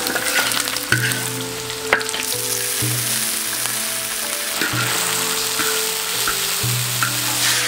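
Beef brisket chunks with garlic, chilies and Sichuan peppercorns sizzling in hot oil in a large wok, with a steady hiss. A metal spatula stirs them, with a few short scrapes and clicks against the pan.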